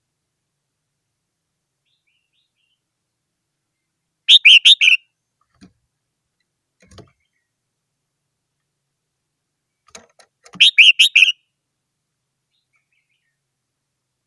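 Red-whiskered bulbul singing: two short, loud phrases of a few quick notes each, about six seconds apart, with a few faint knocks between them.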